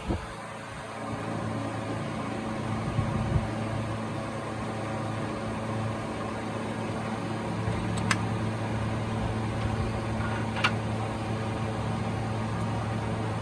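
Steady mechanical hum from a running machine, with two sharp clicks about eight and ten and a half seconds in.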